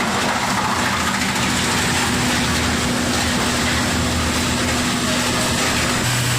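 Wood crusher (sawdust machine) running steadily, a constant mechanical hum over a noisy rush. Near the end the hum's tone shifts lower.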